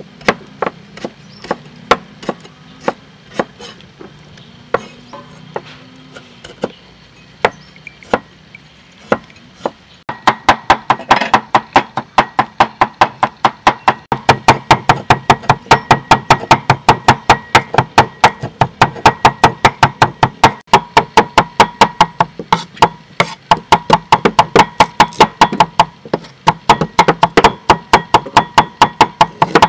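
Knife chopping chilies on a wooden cutting board, mincing them. Separate irregular chops at first, then about a third of the way in a fast, steady run of about four to five chops a second.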